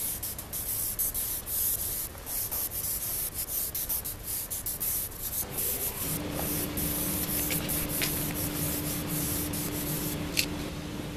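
Aerosol spray-paint can hissing in many short bursts as letters are sprayed. A steady low hum comes in about six seconds in.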